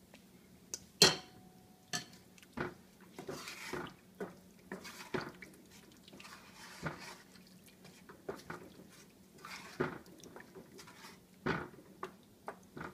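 Wooden spoon stirring a milky sauce in a stainless steel skillet, with scattered scrapes and knocks against the pan, and a sharp clink about a second in.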